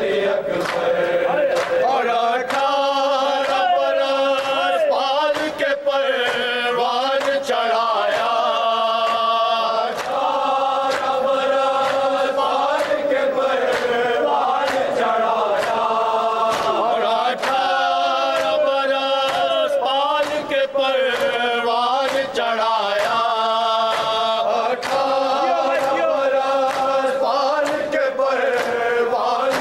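Men's voices chanting a noha, a Shia Urdu lament, together in slow held phrases with sliding notes. Under it runs a steady beat of sharp slaps, typical of matam chest-beating that keeps time with a noha.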